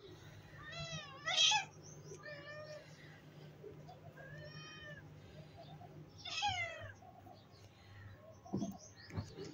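Cat meowing in several short, high-pitched mews, the loudest about one and a half seconds in, over a low steady hum. Two soft low thumps come near the end.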